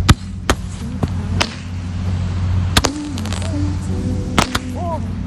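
Small fireworks going off in a series of sharp, irregularly spaced cracks, over a steady low hum.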